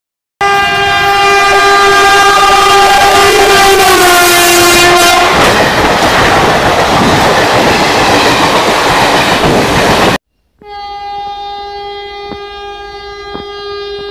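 A train horn sounds loud and long, its pitch dropping slightly just before it stops. Loud rushing, rattling train noise follows, heard from inside a moving coach. After a brief break, a quieter, steady horn from an approaching train plays, with a few sharp clicks.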